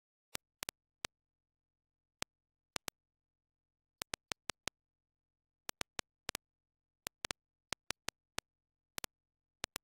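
Spectravideo SVI-328 key clicks: one short, sharp click per keystroke at an uneven typing pace, about two dozen in all. They come in groups as commands are typed, with small pauses between the groups.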